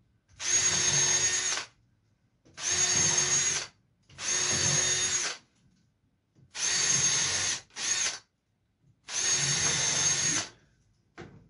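Power drill running in six short bursts of about a second each, one of them much briefer, as it works screws or screw holes into the bench's wooden slats. A brief click near the end.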